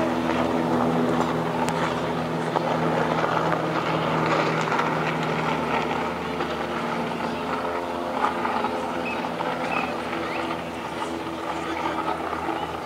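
Banner-towing light propeller plane droning overhead: a steady engine hum with many even overtones that is strongest for the first few seconds and fades after about six seconds, over a background crowd murmur.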